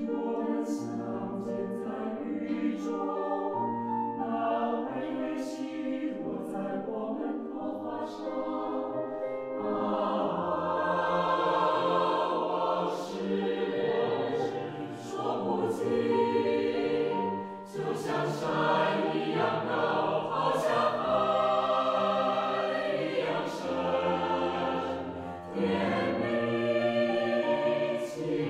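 Mixed-voice choir singing in parts with piano accompaniment, growing fuller about ten seconds in.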